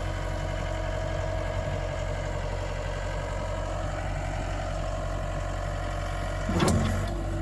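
Yanmar diesel engine of a 2013 Gehl V270 skid steer idling steadily, with a brief louder noise about six and a half seconds in.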